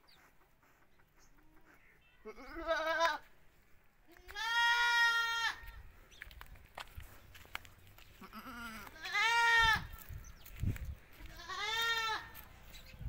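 A goat bleating four times, each call about a second long with pauses between.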